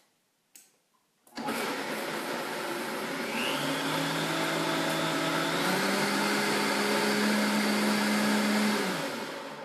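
High-powered countertop blender motor starting about a second and a half in and running hard as it blends a thin sauce with water. Its pitch steps up twice as the speed dial is turned higher, and it winds down near the end.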